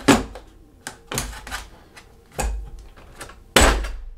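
Metal hand tools, pliers and an adjustable spanner, being set down and pressed into the slots of a moulded plastic tool case: a series of sharp clicks and clacks, loudest just after the start and again about three and a half seconds in.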